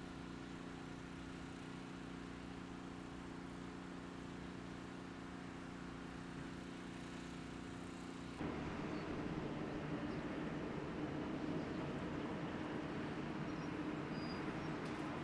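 An engine running steadily with an even hum. About eight seconds in it cuts abruptly to a louder, rougher steady noise.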